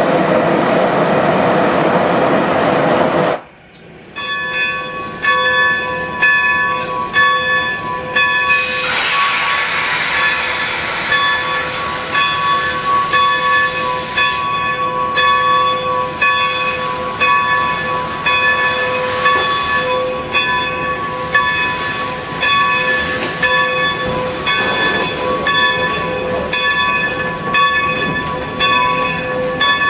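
Steam hissing loudly from steam locomotive No. 90 (Baldwin 2-10-0 Decapod), cutting off suddenly about three and a half seconds in. Then the locomotive's bell rings steadily about once a second, the usual warning that the train is about to move, with another stretch of steam hiss from about nine to fourteen seconds in.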